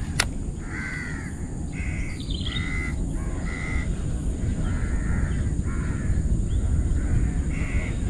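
A bird calling over and over, about ten short pitched calls roughly a second apart, over a low steady rumble.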